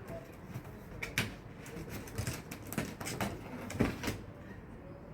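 Irregular knocks and clicks as the parts of a cat house are handled and fitted together, stopping about four seconds in.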